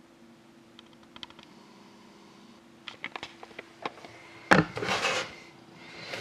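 Handling of a trading card box on a table: scattered clicks and taps, a sharp knock about four and a half seconds in, then a brief scraping rustle.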